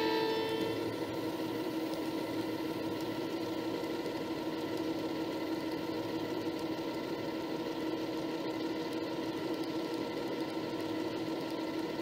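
N scale model train running on its track: the small electric motor and the wheels over the rails make a steady hum and rattle. A horn note carried over from before cuts off about a second in.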